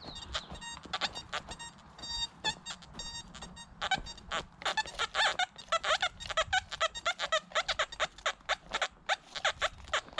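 XP Deus metal detector sounding short, pitched beeps as the coil sweeps over ground thick with iron and lead trash, scattered at first and then coming fast and irregular, several a second, from about four seconds in.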